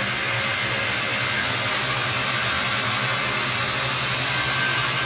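Robotic sanding cell running, with its Eurovac dust-extraction vacuum on: a steady rushing noise with a constant low hum.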